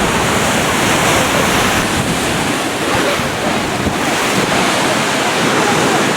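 Rough, storm-driven surf breaking on the beach, with strong wind buffeting the microphone in a steady, loud rush of noise.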